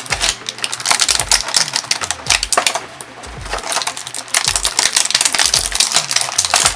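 Thin clear plastic packaging crinkling and crackling in dense rapid bursts as small plastic toy figures are handled and pulled out of it.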